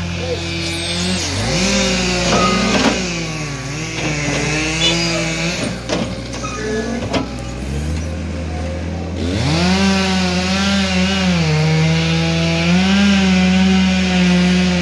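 Cat skid steer loader's diesel engine running under load while it carries a large log in its bucket, its pitch rising and falling repeatedly as the throttle and hydraulics change. A few knocks come around the middle.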